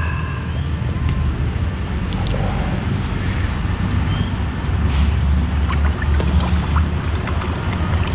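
Steady low rumble of wind buffeting the microphone, with a few faint ticks and scratches of hands working in the mud at an eel hole.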